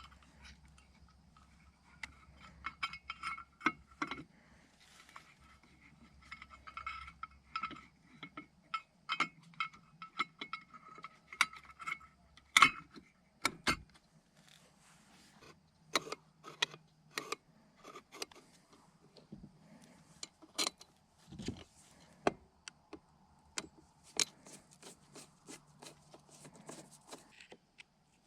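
Small metal carburetor parts clinking and tapping as they are handled during a carburetor rebuild: a long run of sharp, irregular clicks and knocks, loudest about twelve seconds in.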